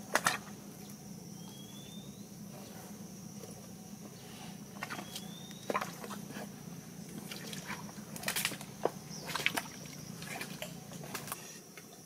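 Scattered clicks and rustles as a nylon crab-trap net is handled, over a steady high-pitched hum, with two short rising chirps.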